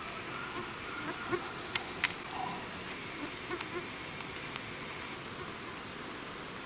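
Summer woodland insects keeping up a steady, high-pitched drone, with buzzing close by. A few sharp clicks stand out, the loudest two in quick succession about two seconds in.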